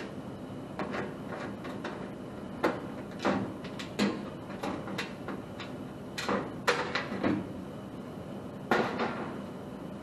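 Sheet-metal front access panel of a gas furnace being unscrewed and pulled off: a series of sharp metallic clicks and clanks, loudest about two-thirds of the way in and again near the end, over a steady background hum.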